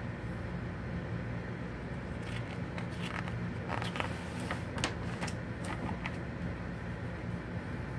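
Glossy magazine pages being handled and turned: a run of crisp paper rustles and crackles from about two to six seconds in, over a steady low hum.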